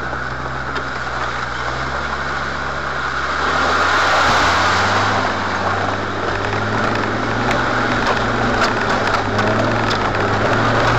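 Off-road 4x4's engine running as it drives up a rough, stony track, heard from inside the cab. About three to four seconds in the engine revs step up and the rumble of the tyres on loose stones grows louder, with scattered small knocks and rattles.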